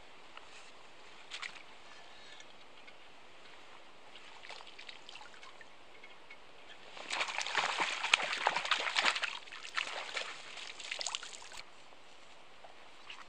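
Lake water splashing and trickling in a dense patter of little splashes, starting about seven seconds in and lasting some four seconds.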